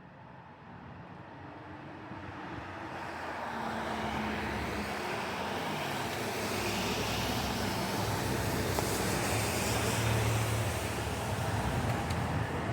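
A TTC rail transit train approaching, its rumble growing louder over the first four seconds, then running steadily close by.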